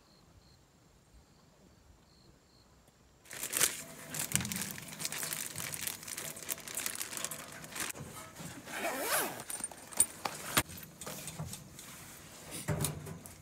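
Near silence for about three seconds, then a clear plastic bag crinkling and rustling as a raw whole chicken is pulled out of it, with sharp crackles throughout. There is a soft thud near the end as the chicken goes into a metal pot.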